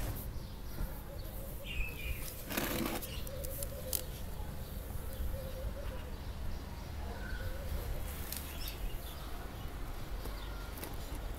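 Outdoor background with a steady low rumble, a brief rustle about two and a half seconds in, and a few faint bird chirps.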